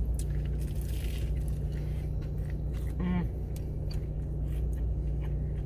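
A person biting and chewing a juicy sandwich, with wet clicks and smacks, over a steady low hum inside a car. There is a brief hummed "mm" about three seconds in.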